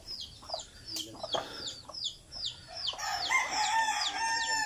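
A gamefowl rooster crowing, one long call starting about three seconds in, over a run of quick, high, falling chirps.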